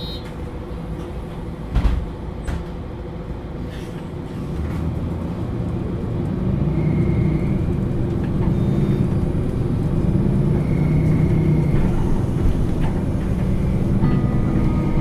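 MAN Lions City A21 NL323 city bus's diesel engine idling at a standstill, its running growing louder from about five seconds in. A single sharp thump about two seconds in.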